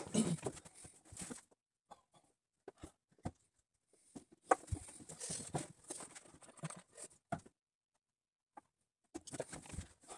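Rustling and handling noises with scattered light knocks from a person moving about at a table. In the middle, a plastic water bottle is handled and drunk from, its crinkling the densest stretch.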